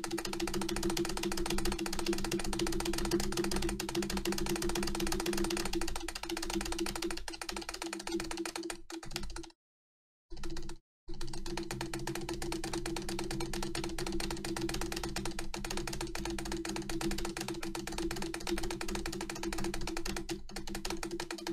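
Acer computer keyboard's spacebar hammered rapidly with both hands, about seven plastic key clicks a second in a fast, steady clatter. The sound cuts out to silence twice, briefly, about ten seconds in.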